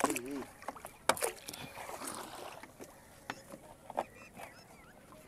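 Scattered knocks and light splashes around a small fibreglass boat on calm water as a bamboo punting pole is worked and a nylon fishing net is handled; the sharpest knock comes about a second in. A brief wavering call at the very start.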